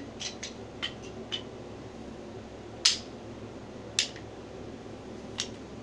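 Wooden toy train track pieces being handled off-camera: a scattered handful of sharp light clicks and knocks, the two loudest about three and four seconds in, over a steady low room hum.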